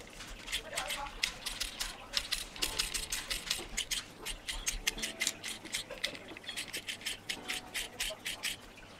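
Quick, irregular run of small sharp clicks and ticks as the parts of an airsoft AEG Version 2 gearbox shell are worked and test-fitted by hand.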